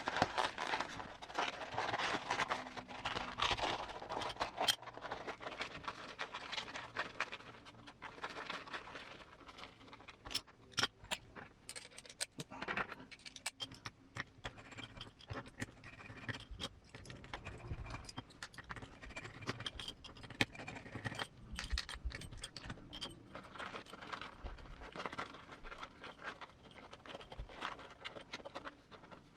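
A Pro-Line foam insert being stuffed by hand into a JConcepts Rupture 1.9 rubber crawler tire: irregular scraping and rustling with scattered small clicks, busiest in the first few seconds.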